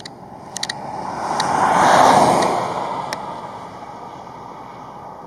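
A road vehicle driving past, a swell of tyre and engine noise that peaks about two seconds in and fades away, with a few light clicks.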